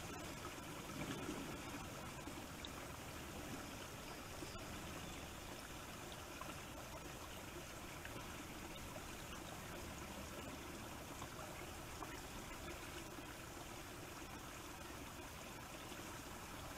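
Faint, steady hiss of outdoor ambience with no distinct events, picked up by a trail camera's built-in microphone.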